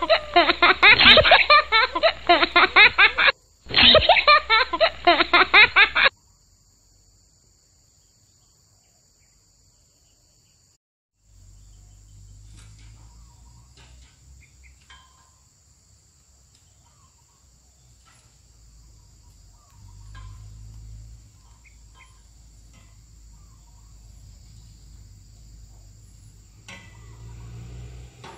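A loud edited-in sound clip with fast pulsing, like a laughter sound effect, with a short break and a sudden stop about six seconds in. After a few seconds of near silence comes quiet outdoor background with a faint low rumble and scattered faint clicks.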